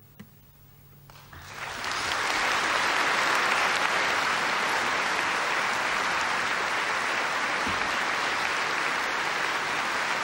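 Large concert audience applauding: after a quiet moment with a last guitar note dying away, the clapping starts about a second in, swells quickly and then holds steady.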